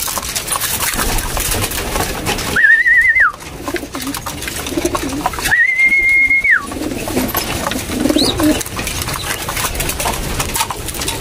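Racing pigeons cooing in a loft, low rolling coos several times over. Two short, level high whistled tones come about two and a half and five and a half seconds in.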